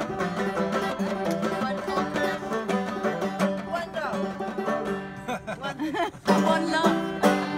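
Banjo played live, a quick, busy run of plucked and strummed notes. About five seconds in the playing breaks up briefly before loud notes return.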